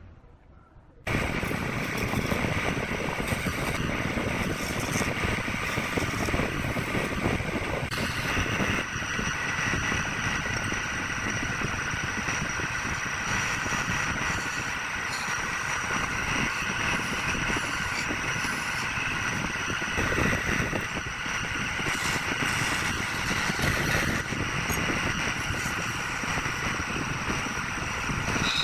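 Wood lathe running steadily, with a turning tool cutting the spinning wood. It starts abruptly about a second in.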